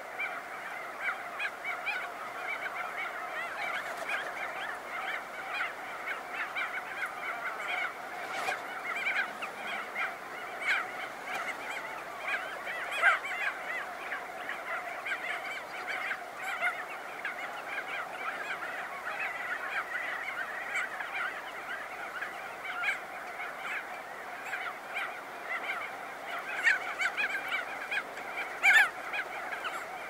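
A colony of crested auklets calling, many birds at once in a dense, continuous chorus. A few louder close calls stand out about 13 seconds in and near the end.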